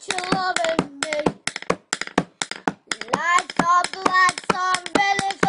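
A young boy singing a tune while drumming fast taps with a pencil. The tapping runs on alone for about a second and a half in the middle, then the singing comes back.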